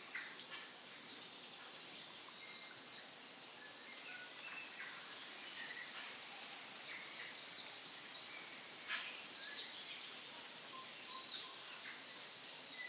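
Outdoor ambience of small birds chirping: short, scattered calls over a steady hiss, with a single louder click about two-thirds of the way through.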